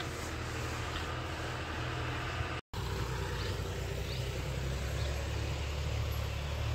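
Diesel engine of heavy farm machinery running steadily at low revs. The sound cuts out completely for a moment a little before three seconds in, then carries on.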